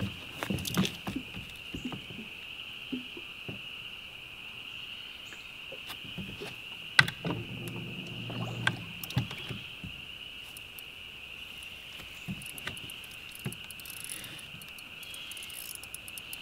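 A steady, high-pitched insect chorus, with scattered knocks and clicks; the sharpest click comes about seven seconds in, followed by a few low thumps.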